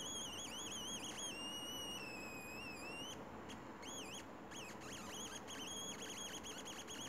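High-pitched electronic tone from a sensor module with a piezo in place of its light-dependent resistor, heard through a laptop speaker. The pitch dips and wavers over and over, slides a little lower for a second or two, then breaks into choppy, stuttering bits. The owner believes it changes with the piezo's resistance.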